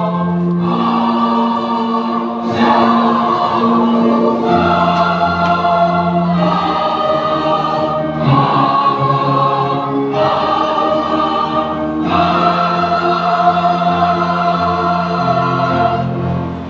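A choir singing held chords, the harmony changing every two seconds or so, with the singing ending on a final chord just before the end.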